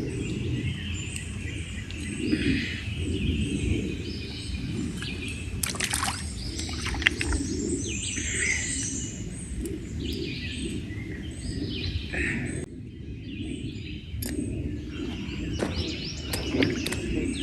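Wild birds chirping and singing over a steady low background noise. A few sharp clicks come about six to seven seconds in.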